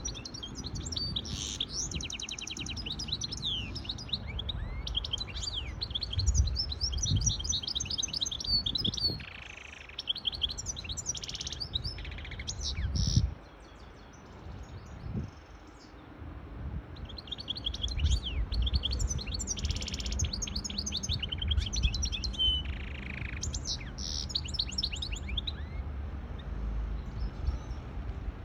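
Goldfinch hybrid singing: long phrases of fast twittering trills and chirps, with a short pause about halfway through, over a low background rumble.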